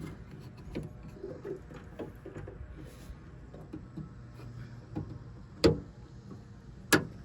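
Small clicks and taps of the tailgate latch rods and their retaining clips being handled and snapped back into place, with two sharp, louder snaps near the end.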